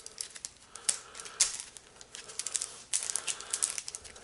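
Spiral metal armour of BX cable clicking and rattling in irregular bursts as it is worked off the copper wires by gloved hands.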